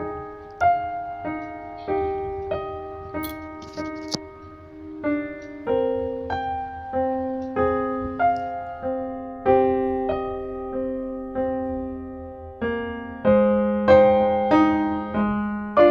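Background music: a slow melody of single keyboard notes, each struck and then fading, a little under two notes a second.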